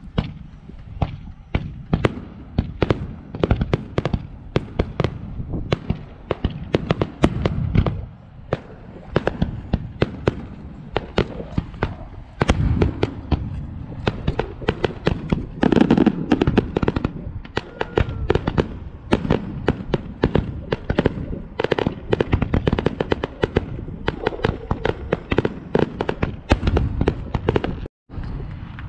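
Aerial fireworks going off in rapid succession: a nearly continuous string of sharp bangs and crackles, several a second, over a low rumble. The sound cuts out briefly about a second before the end.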